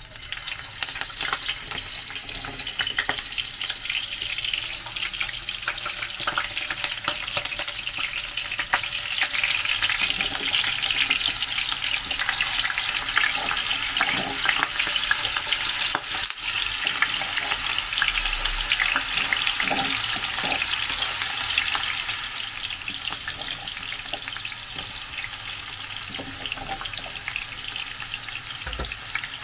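Cubed potatoes frying in hot cooking oil in a pan, a dense crackling sizzle that starts suddenly, with occasional light clicks of stirring.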